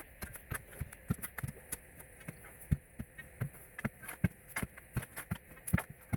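Irregular quick clicks and knocks, several a second.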